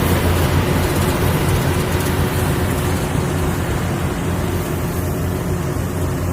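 Yanmar AW70 combine harvester running steadily with a deep engine hum and a broad mechanical hiss; the higher hiss eases off somewhat past the middle.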